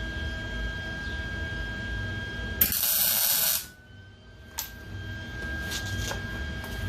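A single tack weld on sheet-metal auto body panels: about a second of loud hissing welding arc, starting near the middle and cutting off sharply, followed by a few light clicks, over a steady background hum.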